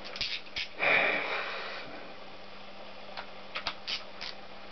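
Light metallic clicks and clinks of hand tools working on a stripped Honda GL650 engine block. About a second in there is a louder rustling, scraping noise lasting about a second, and then a few more scattered clicks.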